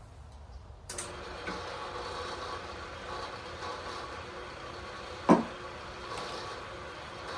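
Atlas milling machine switched on about a second in and running steadily with a hum. A single sharp knock comes about five seconds in.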